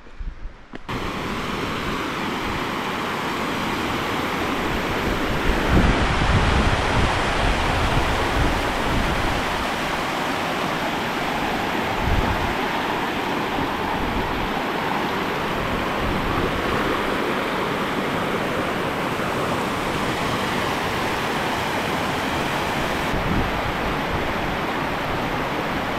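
Mountain stream rushing and splashing over rocks, a loud steady sound that starts suddenly about a second in. A few low bumps come through it, the strongest about a quarter of the way in.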